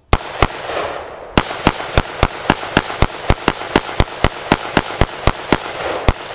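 AR-15 rifle fire: two shots, a pause of about a second, then a rapid, even string of shots at about four a second that stops shortly before the end. Each shot is followed by an echo.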